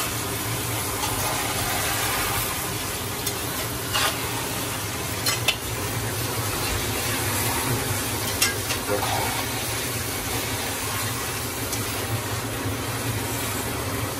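Chunks of lamb sizzling in hot oil in a cast-iron kazan while being stirred, with a metal skimmer knocking against the pot a few times.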